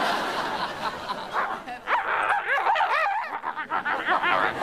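Studio audience laughter dies away, then a dog barks in a quick run of short, high yaps.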